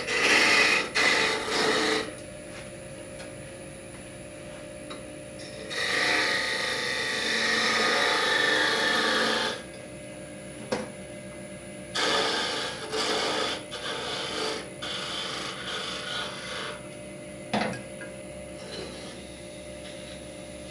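Wood lathe running with a faint steady hum while a hand-held turning tool cuts into the spinning wooden workpiece in several bouts of rasping scraping, the longest lasting a few seconds in the middle.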